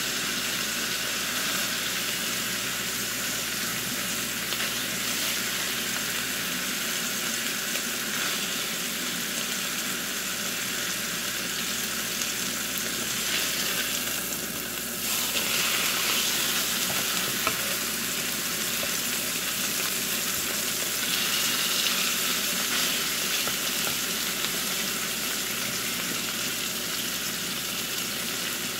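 Steak sizzling as it pan-fries in butter in a nonstick skillet, a steady hiss that grows a little louder about halfway through.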